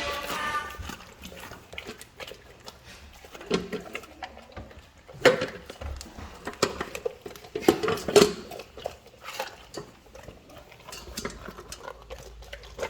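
Cane Corso dog chewing a whole tilapia fish: irregular wet crunches and clicks of teeth on fish and bone, with a few louder crunches about five and eight seconds in.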